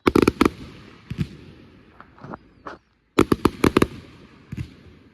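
Fireworks going off: a rapid volley of about five sharp bangs at the start, single pops over the next two seconds, then another volley of about six bangs about three seconds in, with a fading tail after each volley.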